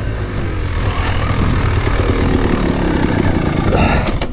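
Two-stroke dirt bike engine running under throttle, its pitch rising and falling as the rider works the throttle, with a few sharp knocks near the end.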